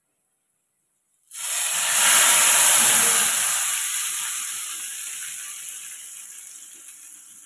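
Hot tadka (oil fried with whole spices and garlic) poured onto cooked spinach curry, sizzling loudly. The sizzle starts suddenly about a second in and slowly dies away as the oil cools into the curry.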